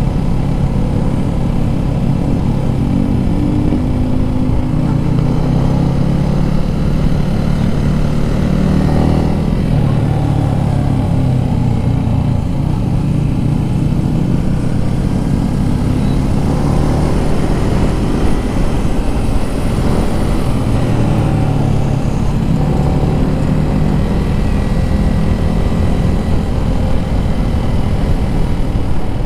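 Yamaha Sniper 155's single-cylinder engine running hard on track, its note climbing under throttle and dropping as it slows for corners, several times over, with wind rush.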